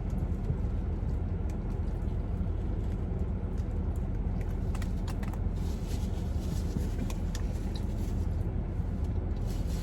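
Steady low hum of a car's air conditioning running, with a few faint clicks.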